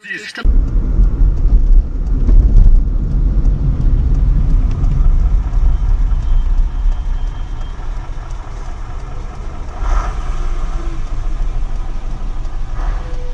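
Deep engine rumble of a large coach bus moving past close alongside, heard through a dashcam microphone; loudest in the first few seconds, with a short knock about ten seconds in.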